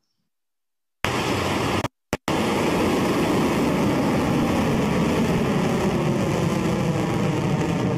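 Electron rocket's nine Rutherford first-stage engines firing at liftoff: a loud, steady rushing noise that starts about a second in, with two brief dropouts about two seconds in.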